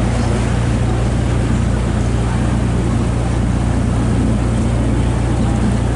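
Tour boat engine running steadily: a constant low drone under an even rushing noise from the boat moving through the water.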